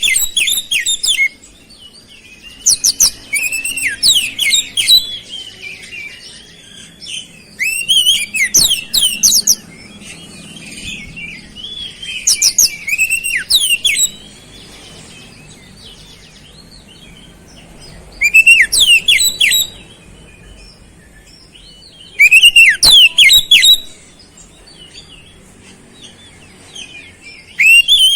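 Oriental magpie-robin singing loud, short phrases of rapid high chattering notes and slurred whistles, a new phrase about every four to five seconds with pauses between. Its song is filled with mimicked flowerpecker calls.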